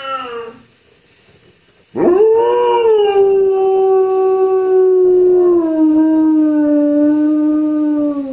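German Shepherd howling: the tail of one howl fades out, and about two seconds in a single long howl begins, rising quickly, then holding steady for about six seconds and sinking slightly in pitch near the end.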